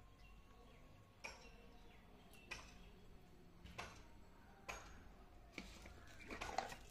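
Faint handling sounds: a few sharp clicks about a second apart, then plastic bubble wrap crinkling near the end.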